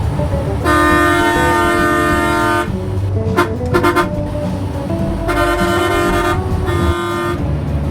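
Vehicle horn honking in several long blasts: one held about two seconds from just after the start, then two shorter ones about five and seven seconds in.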